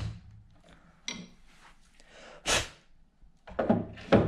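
Workshop handling sounds: a light click about a second in, a short rush of noise a little after two seconds, then a quick run of sharp knocks near the end.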